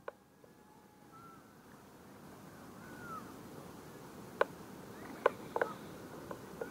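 Outdoor ambience with a couple of short, faint bird calls, then three sharp clicks in the second half.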